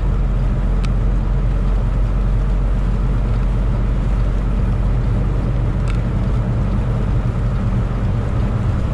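Semi truck's diesel engine running steadily at highway speed with road noise, heard from inside the cab as a low, even drone; two faint clicks sound at about 1 s and 6 s.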